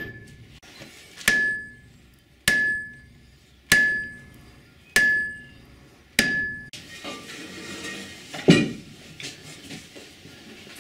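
Sledgehammer blows on the iron of a 1917 Farquhar stationary steam engine: six ringing metal-on-metal strikes, about one every second and a quarter. Later, a single heavier knock.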